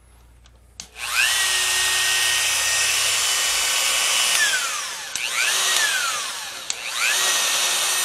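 Dremel 4300 rotary tool with its flex shaft attached, running with a high whine: it spins up about a second in, winds down, starts briefly and winds down again, then spins up once more near the end. The motor runs again on its newly replaced carbon brushes.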